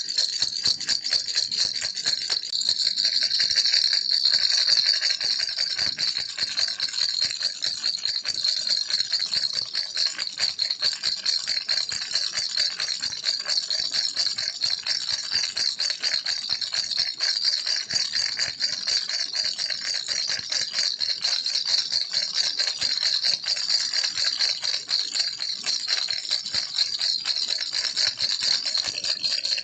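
Baby rattle shaken continuously, its beads clicking in a fast, dense, unbroken rattle.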